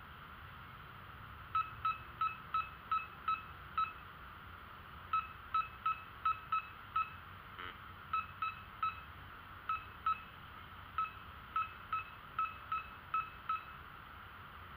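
Metal detector beeping on a buried metal target: short beeps at one steady pitch, about three a second, in several runs with pauses between.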